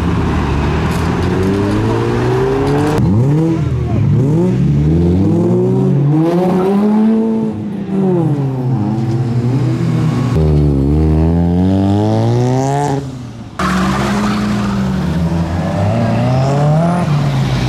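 Car engines revving and accelerating away one after another, their pitch rising and falling again and again. The sound changes abruptly twice, about three seconds in and again near thirteen and a half seconds.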